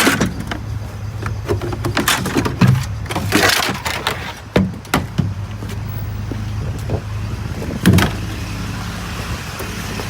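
Vehicle engine idling with a steady low hum, with scattered knocks and clunks over it, a short rushing noise about three and a half seconds in, and a sharp knock near the end.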